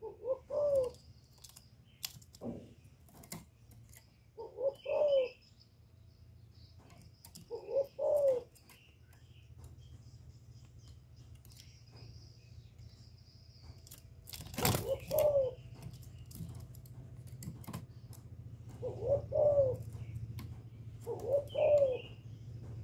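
Spotted dove (cu gáy) cooing: six short phrases of a few rolling coo notes each, spaced a few seconds apart. There is a sharp knock about two-thirds of the way through, and a low steady hum underneath.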